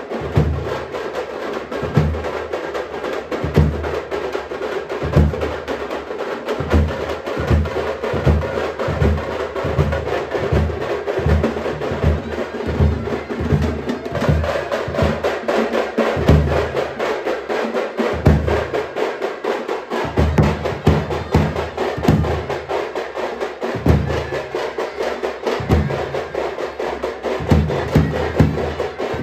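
Street procession drum band: large double-headed bass drums struck with a stick, beating in a fast, uneven rhythm over a dense rattle of smaller drums. The bass drum drops out briefly about two-thirds of the way through, then comes back in.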